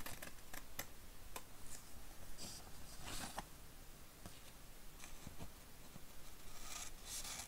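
Scissors cutting sheet sticker paper: faint, irregular snips with the crackle of the paper, a few longer cutting strokes among small clicks.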